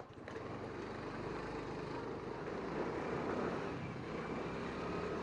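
Motorcycle engine and exhaust running steadily as the bike rides slowly along.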